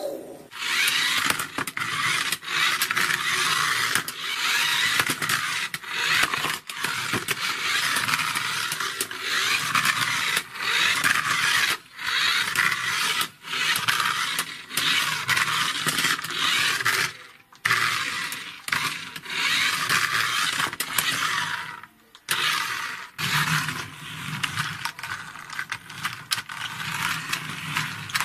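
Plastic toy cars, among them a toy monster truck, rolled and pushed by hand across a hard tabletop: a steady scraping, rolling noise with brief breaks as each car is stopped and moved again.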